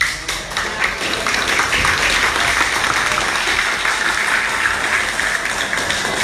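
A roomful of young novice monks applauding: many hands clapping together in a dense, steady patter.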